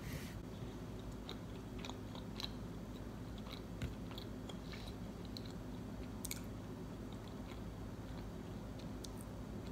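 A person chewing a mouthful of pancake, with scattered small clicks over a steady low hum.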